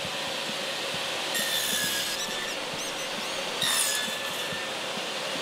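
Table saw running with its blade spinning, cutting a series of shallow kerfs across a wooden beam to clear out a half-lap joint. Two cutting passes rise as high whines about a second long, about a second in and again near four seconds, over the saw's steady running.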